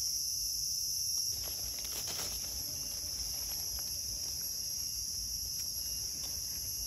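Steady, high-pitched chorus of forest insects shrilling without a break, with a faint rustle of dry leaf litter as a mushroom is handled a second or two in.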